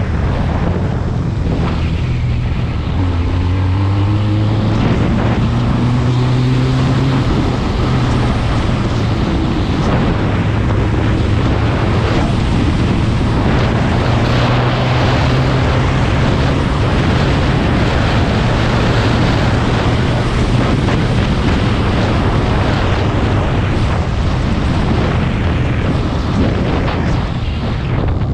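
SMC Barossa 250 quad's twin-cylinder 250 cc engine running on the move. Its note rises for a few seconds as it accelerates, then holds steady while cruising, with wind noise on the microphone throughout.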